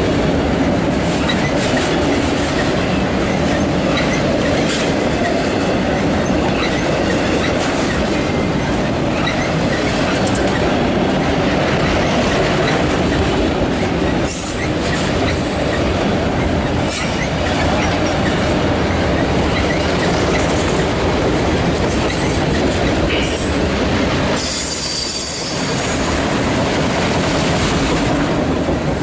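Autorack cars of a CSX freight train rolling past close by: a loud, steady rumble and rattle of steel wheels on the rails.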